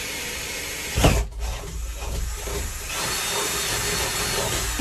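Cordless drill running under load, its bit boring a screw hole through a door, with one loud knock about a second in.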